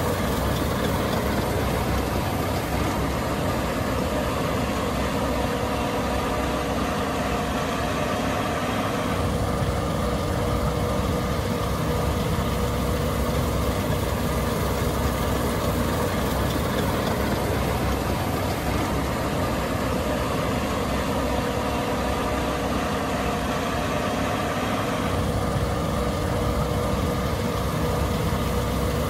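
Case IH 8260 Axial-Flow combine running steadily, its engine drone carrying a steady whine. A deeper rumble comes in about nine seconds in and drops away again about four seconds before the end.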